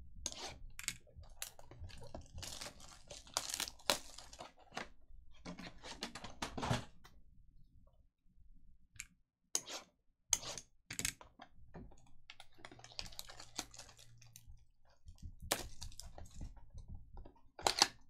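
A utility knife slitting the shrink wrap on a trading-card box, then the wrap, cardboard and wrapped packs being handled and torn open. The result is a run of irregular clicks, crinkles and short tearing sounds.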